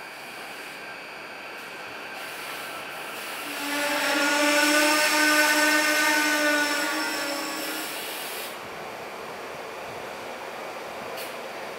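SEPTA Silverliner V electric commuter train pulling into the station alongside the platform. From about three and a half seconds in, a steady pitched whine with several overtones rises over the rushing noise of the train. It stops about eight seconds in, and the overall noise drops back soon after.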